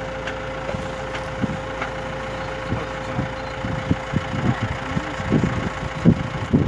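Vehicle engine idling with a steady hum. Irregular low rumbles and knocks join from about three seconds in.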